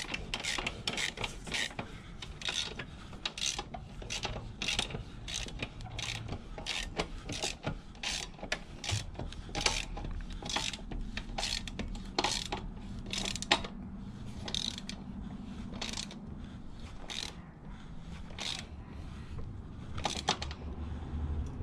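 Socket ratchet wrench clicking as it turns the bolts at a motorcycle's rear axle, in uneven runs of sharp clicks a few a second.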